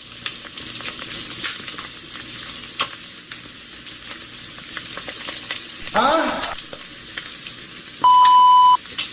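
Steady crackling, sizzling noise with many small clicks. About six seconds in, a short pitched sound swoops up and back down, and a little after eight seconds a steady beep tone sounds for under a second, the loudest thing here.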